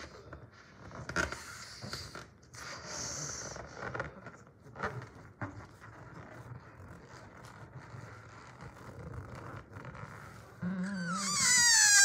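Faint rubbing and handling noises, then from about eleven seconds in a loud squeal with a wobbling pitch: air escaping through a balloon's stretched neck.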